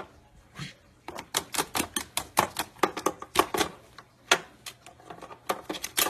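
A quick, irregular run of sharp clicks and taps, about four or five a second, as a white-bellied caique hops and stomps about on a plastic game case and console.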